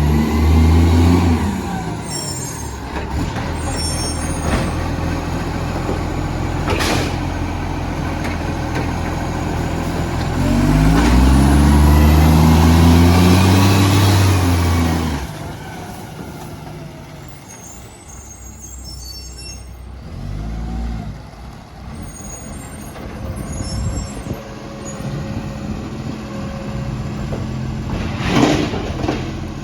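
Garbage truck's diesel engine, which has an exhaust leak, revving up twice: briefly at the start and more loudly for several seconds in the middle, then dropping back to a quieter run. Two short sharp hisses cut through, one early and one near the end.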